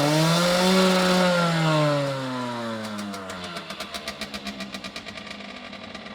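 Aprilia RS50's de-restricted 50cc two-stroke single engine revved high: the pitch climbs to a peak about a second in, then the revs fall away over the next two seconds and settle to idle, the exhaust pulses heard as a quick putter.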